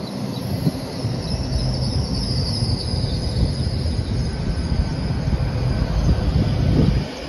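Great Western Railway Class 802 train running through the station close by: a loud rumble of wheels and running gear with a high steady whine above it. The sound drops suddenly just before the end.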